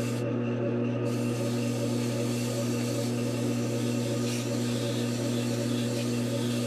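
A Grizzly lathe running steadily with a motor hum, while sandpaper rubs against the spinning pink foam blank in a steady hiss. The rubbing lifts off briefly near the start.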